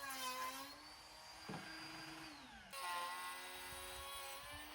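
Handheld wood router running steadily, rounding over the edge of a pine 1x4; its motor pitch dips slightly and recovers as the bit takes the cut, with an abrupt change in the sound partway through.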